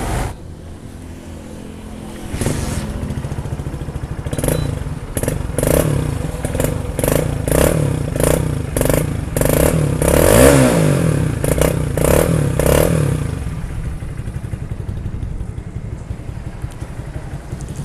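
Hero HF Deluxe BS6's air-cooled single-cylinder fuel-injected engine running with a freshly fitted timing chain. It is blipped through a rapid series of short revs in the middle, then settles back to a steady idle. No timing-chain or tappet rattle remains.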